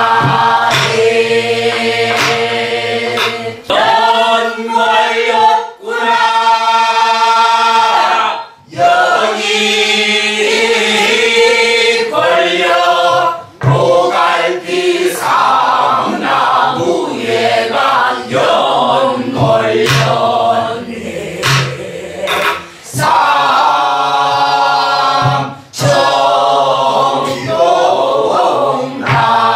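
A group of voices singing a Korean Namdo folk song (Namdo minyo) together, with the drawn-out, bending pitches of the style, accompanied by scattered strokes on a buk barrel drum.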